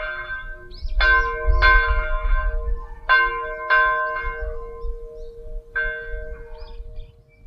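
Church bell tolling in pairs of strokes about half a second apart, then a last single stroke that rings on and fades away near the end.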